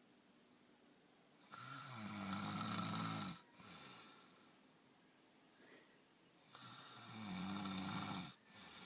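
Snoring: two long snores, each about two seconds, some five seconds apart, each followed by a softer breath out.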